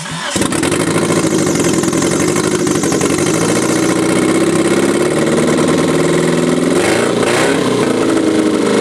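Hyundai Coupé four-cylinder engine catching and running with its valve cover off, camshafts turning in frying oil used as engine oil. The engine speed rises and falls briefly about seven seconds in.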